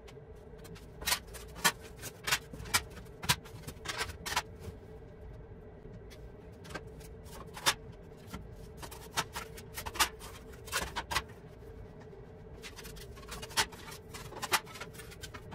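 Rusty steel license plates being handled and set down one by one on a wooden workbench: irregular sharp clacks of thin metal on wood, with light scrapes in between.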